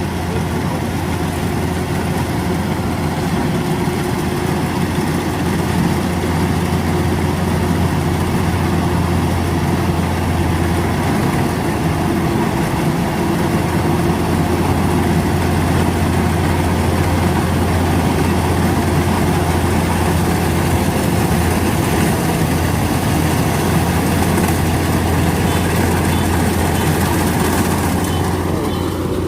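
Rice-field machine's diesel engine running steadily at a constant speed, a loud low hum that does not change.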